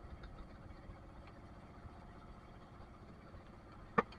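A small fishing boat's engine idling steadily, with one sharp knock about four seconds in.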